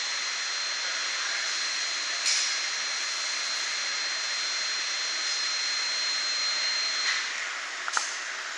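Steady rushing machine noise with a thin high whine that stops about seven seconds in. A metal spatula clicks sharply once against the crepe griddle about two seconds in and again against a plate near the end.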